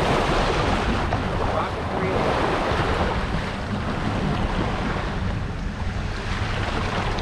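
Wind buffeting the microphone and water rushing past a fishing boat's hull, with the boat's engine running steadily underneath.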